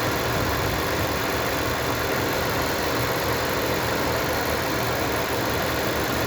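Car engine with a misfire idling steadily while its cylinders are checked one by one.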